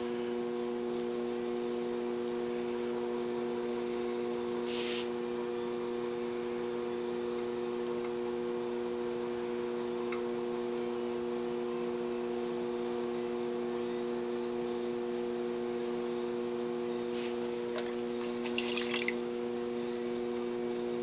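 Electric potter's wheel spinning with a steady motor hum. Twice, about five seconds in and near the end, wet hands on the clay make a brief squish.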